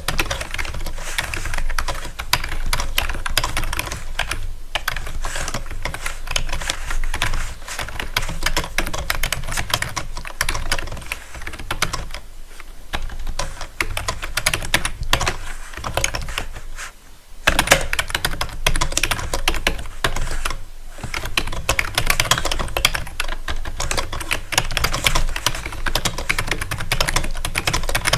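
Rapid typing on a keyboard: a dense, continuous run of key clicks that pauses briefly a few times, over a steady low hum.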